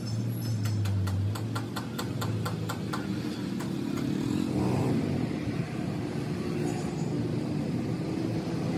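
A motor engine running steadily with a low hum, with a quick series of light clicks, about five a second, over the first three seconds.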